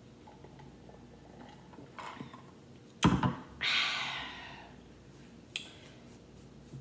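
A stemmed wine glass set down on the table with a sharp knock about three seconds in, followed by a long breathy 'ahh' after a drink that fades out, and a light click a couple of seconds later.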